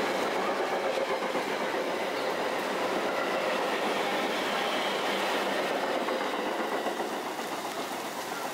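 Metra commuter train rolling through on the rails, steady rumble with wheels clacking over the rail joints; the sound eases a little near the end.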